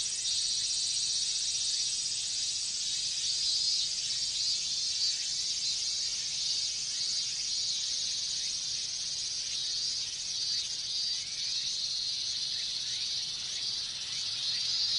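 A chorus of cicadas, including robust cicadas (minmin-zemi), singing together in a dense, steady high-pitched drone.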